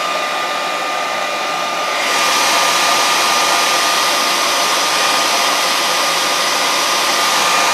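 Hand-held hair dryer running: a steady rush of air with a steady whine, getting louder about two seconds in.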